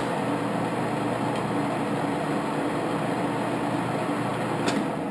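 1941 Cincinnati Bickford geared-head drill press running steadily, its spindle and gearbox giving a loud even whirr, after a sharp click as it is engaged just before. A second click comes near the end.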